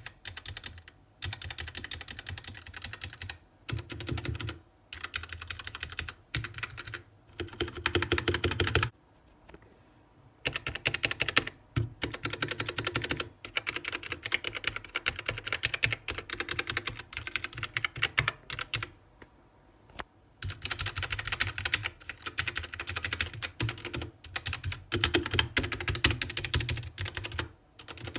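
Mechanical keyboard with Gateron Brown tactile switches being typed on fast, in runs of a few seconds broken by short pauses.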